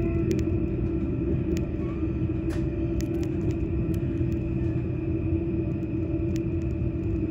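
Passenger train running along the track, heard from inside the carriage: a steady low rumble with a constant hum and a few scattered light clicks.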